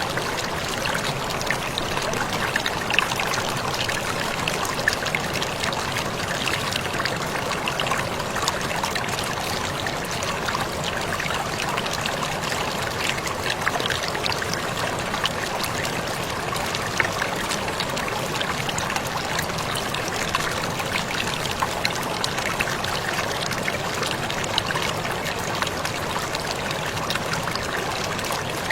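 Water falling and splashing without pause, a steady rush with many small splashes and drips.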